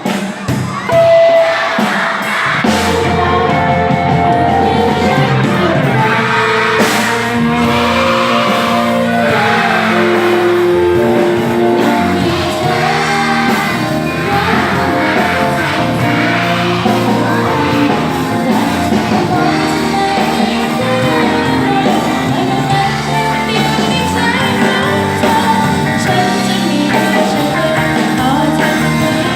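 A song playing, with singing voices over instrumental accompaniment.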